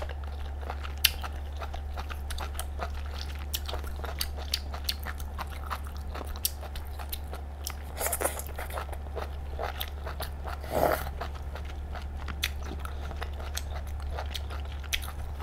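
Close-miked eating of clam meat: wet mouth clicks and smacks while chewing, with a couple of louder mouth sounds about 8 and 11 seconds in, over a steady low hum.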